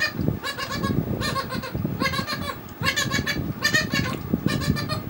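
An animal's short, wavering cries repeated in quick succession, about two a second, over close sounds of rice and curry being mixed by hand and eaten.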